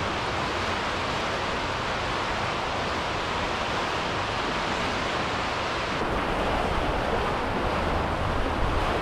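Steady rush of wind buffeting the microphone over choppy water lapping around a kayak, a little deeper from about six seconds in.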